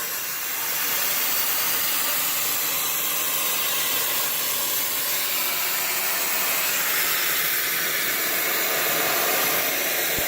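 Homemade siphon-feed sandblaster, an air nozzle fed from a plastic bottle, blasting walnut-shell media with compressed air: a steady, loud hiss of air and grit, carrying a heavy stream of shells.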